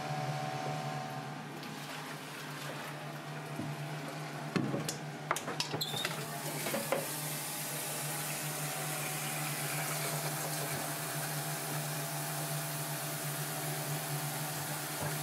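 A few sharp clanks of the pot being handled, then, about six seconds in, a tap starts running water steadily into an aluminium saucepan in a stainless-steel sink to rinse the sea snake pieces. A steady low hum from kitchen equipment runs underneath.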